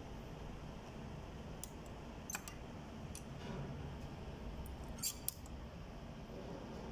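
A few light metallic clicks and taps as keys are set into the vise jaws of a key-cutting machine and clamped, two of them close together about five seconds in, over a low steady background noise.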